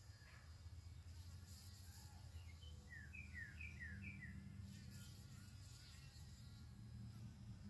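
A fly buzzing faintly and steadily. About three seconds in, there is a short run of about six quick, high, falling chirps.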